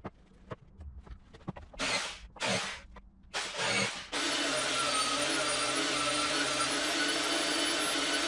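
A few light wooden knocks and short scuffing bursts, then about four seconds in an electric power tool clamped upside down to a sawhorse starts abruptly and runs steadily as a strip of wood is held against it.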